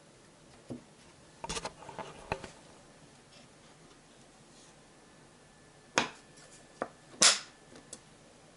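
A pistol and a wooden mallet set down in a felt-lined wooden case, with a few light clatters, then the case's wooden lid shut with two sharp knocks about six and seven seconds in, the second the loudest, followed by a small click.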